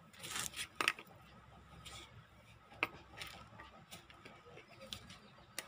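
Hands handling a thuja (arborvitae) and its root ball in a pot of loose potting soil: scratchy rustling of soil and foliage, loudest near the start, with a few sharp clicks.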